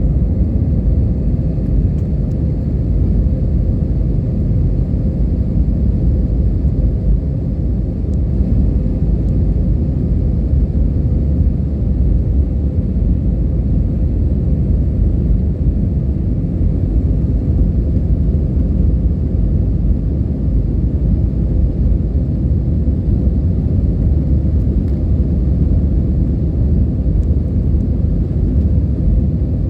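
Airliner cabin noise: a steady, loud low rumble of the engines and airflow, with a faint steady hum on top.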